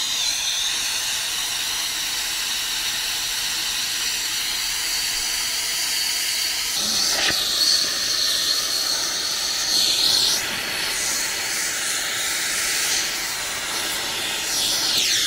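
Handheld torch flame hissing steadily as it heats the capped copper stubs of a new condenser coil to sweat the caps off.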